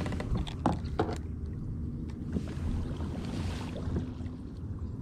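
Low rumble of wind on the microphone over moving water, with a couple of short knocks about a second in.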